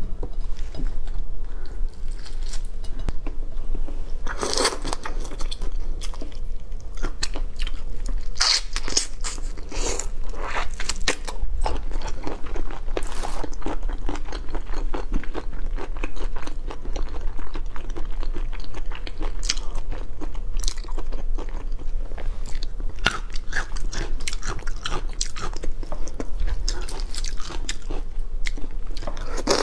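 Close-miked eating of whole shrimp in spicy sauce: crunching and chewing, with many small sharp wet clicks and crackles as the shrimp are picked from the sauce and bitten.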